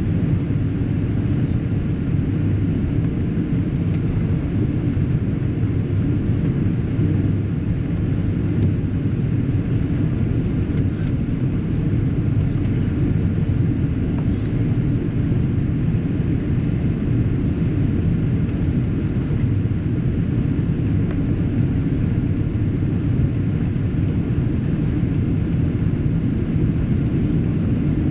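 Steady cabin rumble of a Boeing 777-200ER on final approach, engine and airflow noise heard inside the cabin, deep and unchanging.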